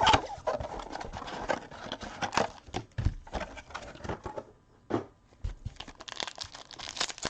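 Trading-card packaging crinkling and cards being handled: irregular rustling with many small sharp clicks and a couple of soft thuds, as packs are torn open and cards are sorted.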